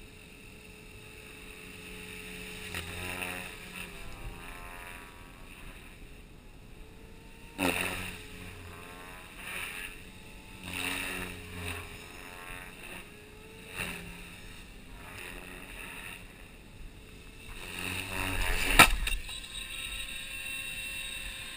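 Align T-Rex 500 electric RC helicopter flying hard 3D manoeuvres. Its rotor chop and motor whine swell and fade as it swoops past several times, with the pitch bending up and down. Near the end comes a single sharp, very loud smack as the helicopter crashes.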